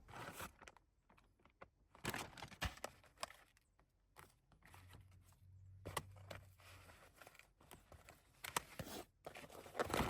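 Intermittent close-up crinkling and rustling of plastic packaging, with scattered light clicks and taps, as food is unwrapped and handled to make a sandwich.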